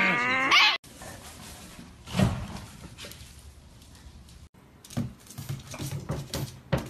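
A small white dog makes a loud, wavering, pitched howl that breaks off within the first second. Then comes a quieter stretch with one thump about two seconds in. Near the end there is a run of short pet noises with clicks.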